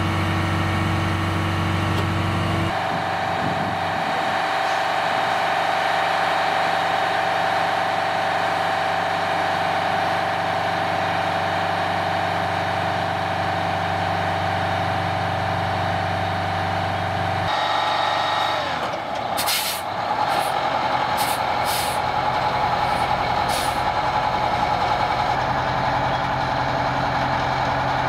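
Heavy military truck's diesel engine running steadily, joined in the middle by a steady high whine. Near the end come several short air-brake hisses.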